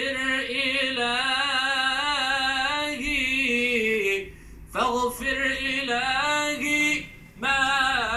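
A man's solo voice chanting Islamic religious verse, holding long wavering melismatic notes, played over a CRT television's speaker. The chant breaks for breath a little after four seconds and again near seven seconds.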